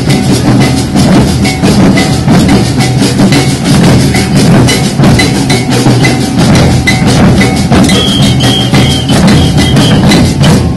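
A group of large rope-tensioned wooden bass drums beaten together in a fast, steady, driving rhythm, recorded loud and close on a phone. Short high ringing tones repeat over the beat, and a few higher short tones come in near the end.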